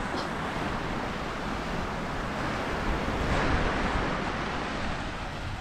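Low surf washing onto a sandy beach, a steady hiss of water that swells about three seconds in.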